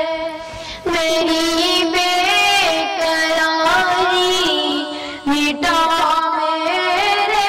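A boy's voice singing a naat, an Urdu devotional song, in long held lines with gliding ornaments, pausing briefly for breath just before a second in and again a little past five seconds.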